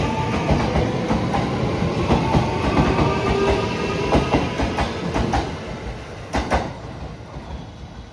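Train running on the rails, its wheels clattering over rail joints as it moves away, the sound fading steadily. Two sharp wheel clacks come near the end.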